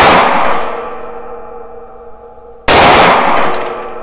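Two shots from an HS Produkt HS-9 subcompact 9x19 mm pistol, one right at the start and another under three seconds later. Each is a sudden loud crack followed by a ringing tail that fades over about two seconds.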